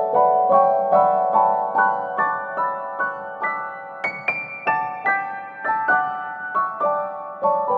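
Instrumental piano music: a gentle melody of single struck notes, about two to three a second, rising to a high note about four seconds in and then falling back.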